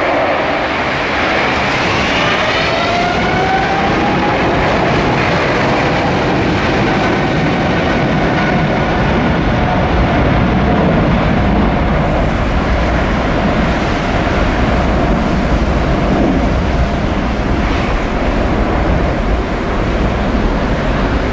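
Boeing 777's GE90 turbofan jet engines running at high thrust during a missed approach: a loud, steady jet rush with whining tones that rise over the first few seconds.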